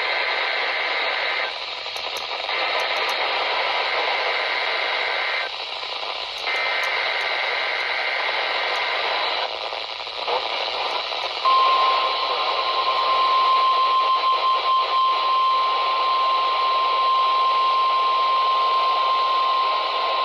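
NOAA Weather Radio Required Weekly Test heard through a weather radio's speaker over heavy static at weak reception. It opens with three buzzing SAME data header bursts of about three seconds each. Then, after a short gap, a single steady alert tone near 1,000 Hz is held for about nine seconds, crackling and fading in and out with the weak signal.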